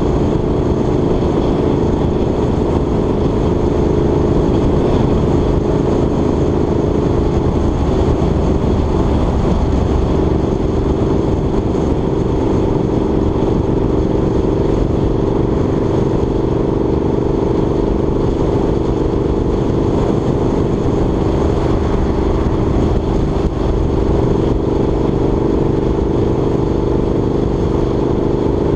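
Motor vehicle cruising at a steady speed: an even engine drone mixed with continuous road and wind noise.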